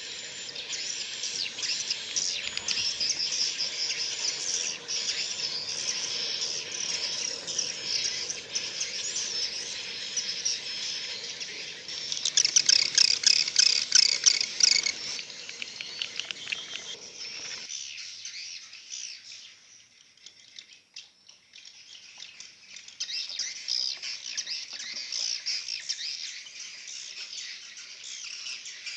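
A flock of edible-nest swiftlets chirping and twittering rapidly inside a swiftlet nesting house. The chirping swells to its densest about halfway through, thins out briefly, then picks up again. A faint low hum stops abruptly a little past the middle.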